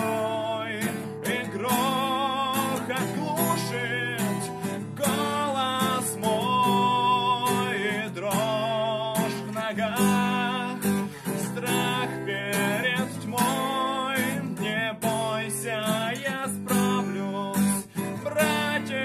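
A man singing in Russian, holding wavering notes, over a strummed acoustic guitar.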